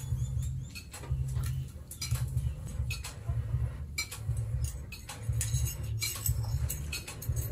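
Scattered light clicks and clinks of a steel bill hook blade knocking against its bamboo handle as it is fitted by hand, over an uneven, pulsing low rumble.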